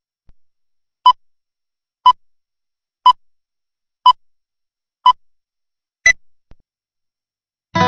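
Six short electronic beeps at one a second, the last one higher-pitched, like a countdown; rock music with electric guitar starts just at the end.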